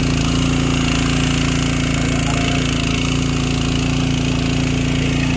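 Motorboat engine running steadily with an even, low drone.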